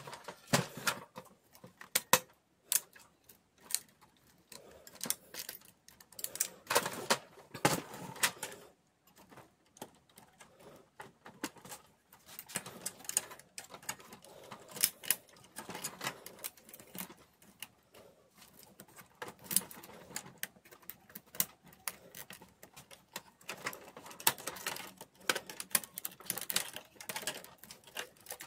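Irregular plastic clicks, taps and rattles as hands unclip and handle parts of a laser printer's plastic chassis and cable guides, in bunches with short pauses between.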